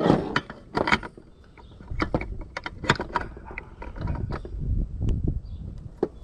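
Scattered metal clicks and knocks of a pipe wrench gripping and working a threaded fitting on a furnace gas valve, straining to break it loose, over a low rumble.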